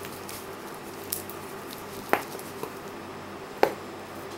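Handling of a steel-bracelet wristwatch: light rustling and small ticks, then two sharp clicks about a second and a half apart as the watch is turned over in the hand.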